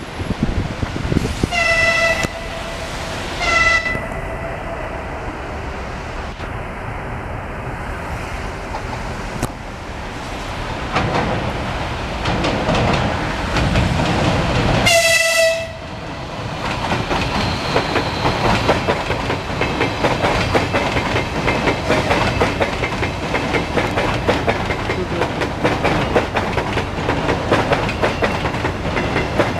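Electric suburban trains passing close by. Two short horn blasts come in the first few seconds as a red-and-grey electric multiple unit goes by, and a third short blast comes about halfway through. After that, a Lastochka electric train rolls past with a rapid, steady clickety-clack of wheels over the rail joints.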